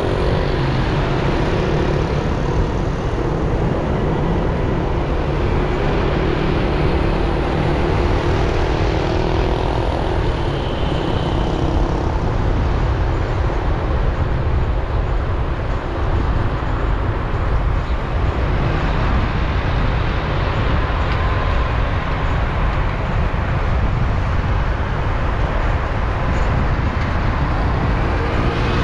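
Steady motor-vehicle traffic noise: a deep, even rumble that holds without a break.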